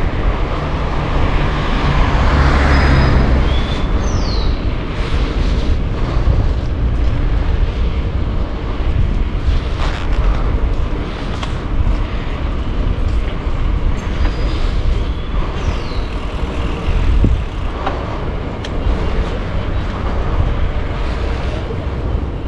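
Steady low rumble of wind on the microphone and road noise while riding a bicycle, with scattered clicks and rattles and a motor vehicle swelling past about two to three seconds in.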